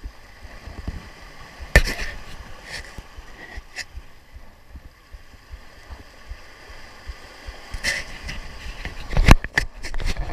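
Small waves washing and splashing against the rocks of a seawall, a steady wash of water. A sharp knock comes about two seconds in and a few more near the end, the last of them the loudest.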